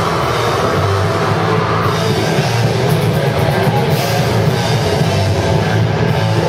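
Deathcore band playing live: loud, dense, distorted electric guitars with a pounding drum kit, steady throughout.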